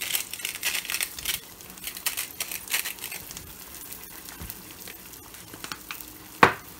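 Eggs frying in butter in a hot cast iron skillet, with irregular crackling and spitting pops. There is one loud sharp snap near the end.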